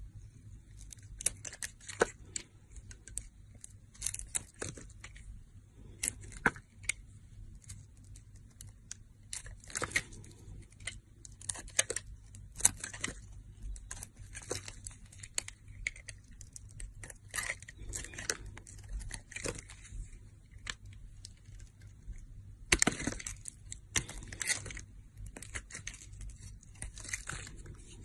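A snap-off utility knife blade cutting and shaving a bar of soap: irregular crisp scrapes and crackles as slices and chunks break away, with a louder run of cuts late on.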